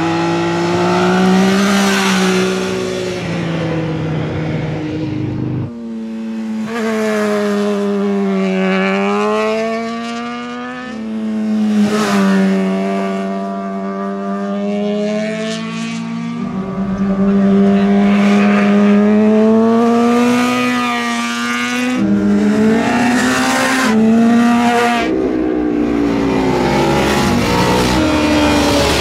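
Sport motorcycle engines running hard through a tight corner, one bike after another. Each engine's pitch dips as the bike slows into the bend and climbs again as it accelerates out.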